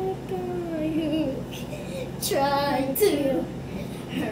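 A young girl singing a tune with long, gliding notes, growing louder and wavering just after two seconds in.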